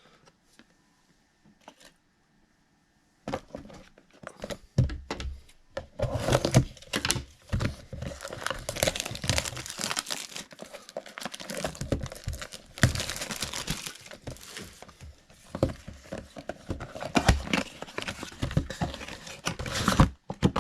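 Plastic trading-card pack wrapping being torn open and crinkled, starting about three seconds in after a near-quiet stretch and continuing as a busy crackle with sharp tearing strokes.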